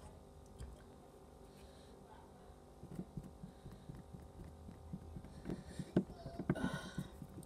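Faint handling noises: scattered small clicks and taps of hands and an object moving close to the microphone, growing busier from about halfway in, over a low steady hum.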